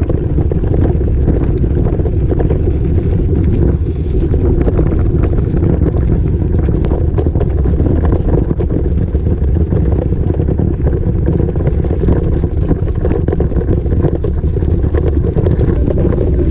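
A bike rattling and jolting over a very bumpy gravel track, with many small irregular knocks over a steady low rumble of wind buffeting the microphone.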